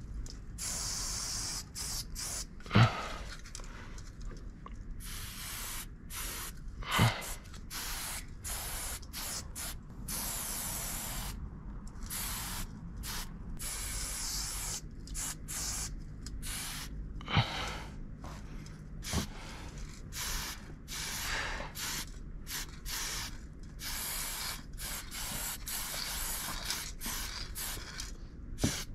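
Aerosol spray paint can hissing in many short bursts as graffiti letters are outlined in black. A few sharp knocks stand out above the hiss.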